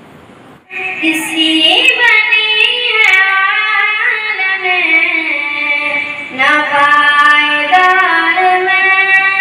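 A young girl singing a naat, an Islamic devotional song, solo into a microphone in long held melodic lines. No instrument is heard with her. She comes in under a second in and breaks briefly a little past the middle.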